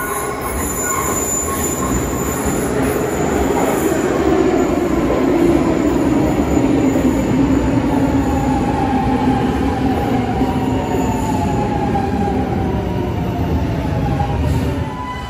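Milan Metro Line 1 train pulling into an underground station and braking: steady wheel-and-motor rumble that grows loud as the cars come alongside, with a motor whine falling in pitch as the train slows. A brief high wheel squeal sounds near the start.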